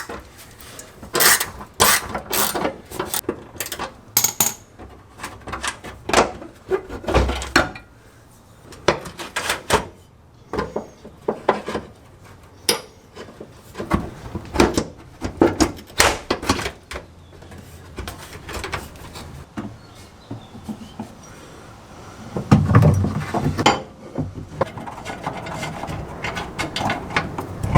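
Hand tools and metal brace parts working under a car: irregular clicks, clinks and knocks as the underbody braces are unbolted and the center tunnel brace is fitted, with a denser stretch of knocking and rustling near the end.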